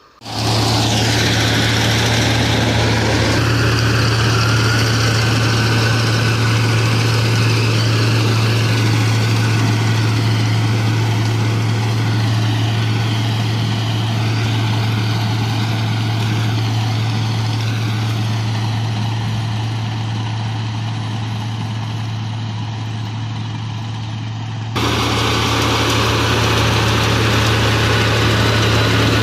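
Combine harvester's diesel engine and threshing machinery running steadily during rice harvesting, with a strong low hum. The sound shifts abruptly about three seconds in and again near the end.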